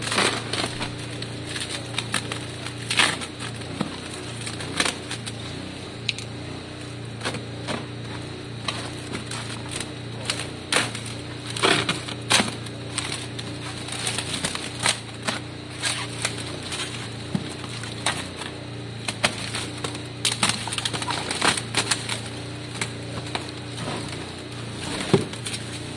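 Cardboard box and plastic wrapping being handled: irregular crinkling, rustling and crackling as a motorcycle fuel tank is lifted out of its box and its bubble wrap is pulled off. A steady low hum runs underneath.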